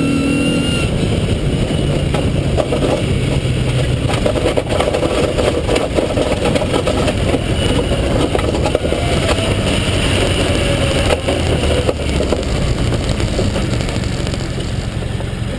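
Rally-prepared Vauxhall Nova 1.4 SR running on motorbike carburettors, driving on loose gravel: the engine note changes pitch over a constant rush of tyres and gravel, with a few sharp stone clicks against the car. It eases off slightly near the end.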